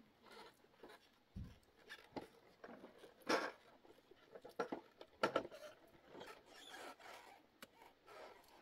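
Irregular light clicks, knocks and scrapes, as of things being handled, with two louder knocks about three and five seconds in.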